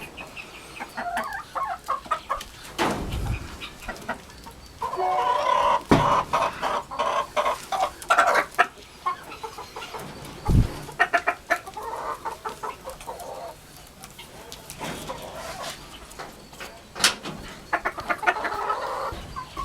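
Flock of domestic chickens clucking in repeated bursts of short calls, with a few low thumps in between.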